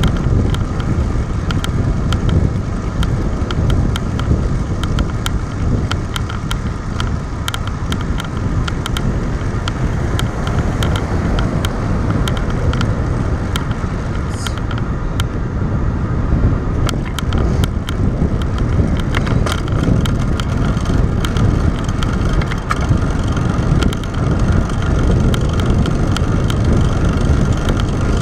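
Steady wind and road rumble on a handlebar-mounted action camera while a road bike rolls along at speed, with many small clicks and rattles from the bike and mount.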